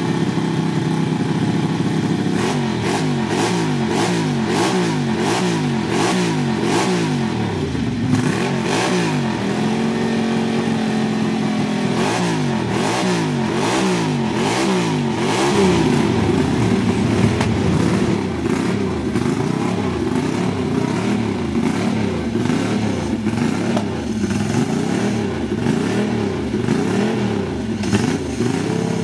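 Ducati-based 860cc bevel-drive twin engine of a 1978 NCR TT-1 race bike, running on its stand and being revved over and over, the pitch rising and falling with each throttle blip. About ten seconds in the revs are held briefly at a steady higher pitch, and later the blips come more evenly.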